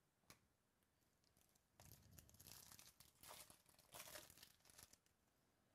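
Foil wrapper of a baseball card pack being torn open and crinkled by hand, starting about two seconds in and lasting about three seconds. A few faint clicks come before it.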